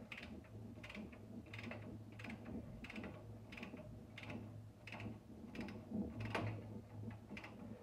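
A ratcheting torque wrench clicking in short strokes, about one every two-thirds of a second, as a T-bolt nut on a Ford 9-inch axle housing is tightened toward 30 foot-pounds. A low steady hum lies underneath.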